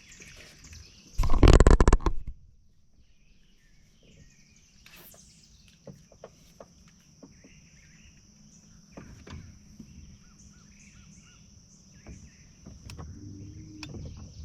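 Swamp-river ambience: a steady high-pitched insect drone with scattered bird chirps. A loud, brief rushing noise sounds about a second in, and a low rumble comes near the end.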